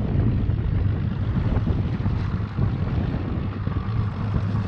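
Wind buffeting the microphone at sea and water moving against the boat, with a steady low hum underneath.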